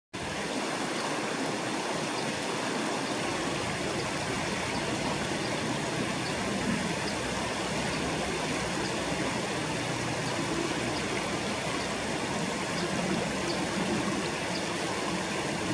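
River water flowing steadily, a constant rushing wash.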